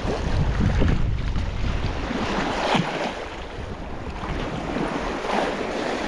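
Sea water washing against the shore, with wind buffeting the microphone, heaviest in the first two seconds.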